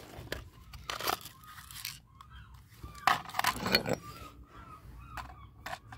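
A few short scrapes and knocks of a claw hammer and a broken plastic toy walkie-talkie being handled over concrete paving, the loudest around a second in and again around three to four seconds in, with faint high chirps in the background.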